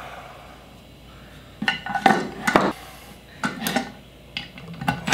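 Metallic clinks and knocks as the aluminium inverter housing and its loose metal parts are handled, starting about a second and a half in, with a short harsh burst at the very end.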